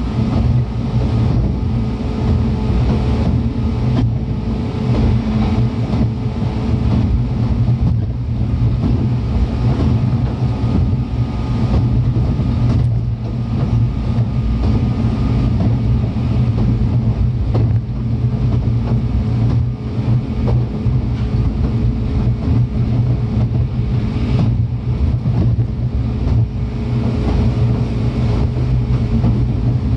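103 series electric train running steadily, heard from inside the passenger car: a continuous rumble of wheels on rail under a steady low hum. A faint higher tone drops out a few seconds in and comes back near the end.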